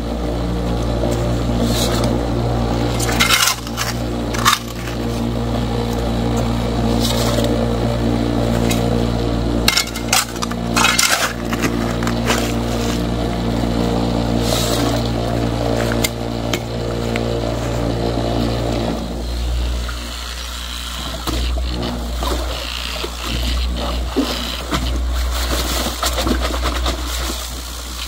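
12V vibrating motor bolted to a bucket classifier humming steadily while shovelfuls of gravelly pay dirt are tipped in, stones clinking and scraping through the screen. About two-thirds of the way through the hum cuts out, leaving irregular low thumps and scrapes.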